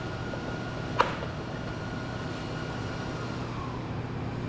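Steady electrical hum of a MIG welder switched on but not striking an arc, with one sharp click about a second in.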